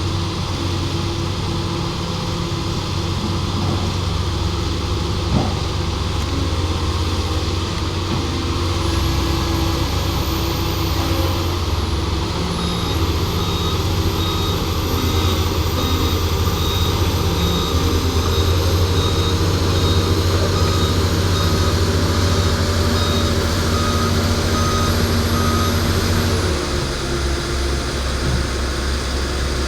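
Heavy diesel engines running steadily, with a series of short high beeps in the middle and a thin high whine above them; the engine note drops near the end.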